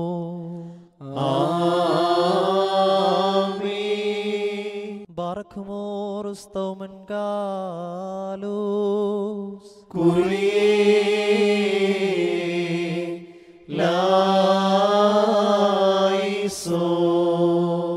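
A West Syriac-rite (Syro-Malankara) liturgical hymn chanted in several long, drawn-out sung phrases with brief breaks between them.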